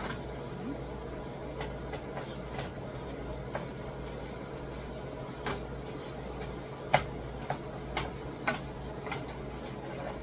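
Meat masher tapping and scraping against a nonstick skillet as ground pork is broken up: irregular clicks and knocks, the loudest about seven seconds in. A steady low hum runs underneath.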